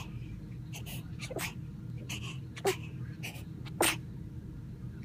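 A sleeping girl sneezing twice in her sleep, two short sharp sneezes about a second apart near the middle, with fainter small breathy sounds around them over a steady low hum.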